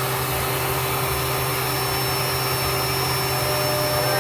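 Household vacuum cleaner running steadily, a constant rushing of air with a low hum and a thin high whine.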